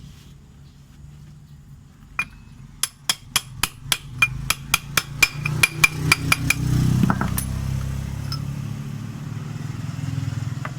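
Hammer striking a steel drift, an old Vixen axle, to drive a new 6902 bearing into the Yamaha NMAX's CVT pulley: a single blow, then a run of about fifteen quick metallic blows, roughly four a second, each with a short ring. A low rumble rises as the blows stop and runs on.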